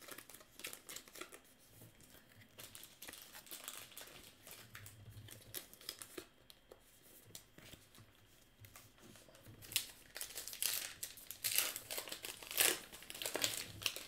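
Baseball card pack wrappers crinkling as packs are handled, then louder crinkling and tearing in the last few seconds as a pack is ripped open.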